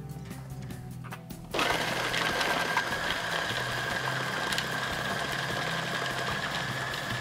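Electric food processor switched on about a second and a half in, its motor running with a steady whine as it chops chunks of onion, garlic and ginger.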